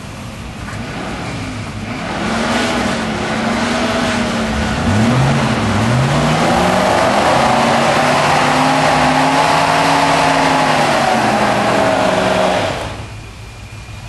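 Off-road 4x4's engine revving hard as it tries to climb a muddy bank. The revs swing up and down, then are held high for several seconds before dropping away suddenly near the end.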